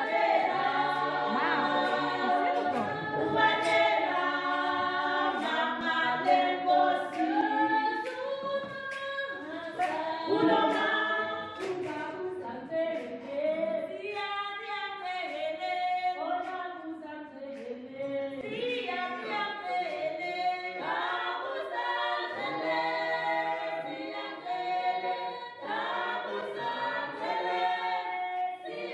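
A choir singing a cappella as background music, voices in close harmony throughout.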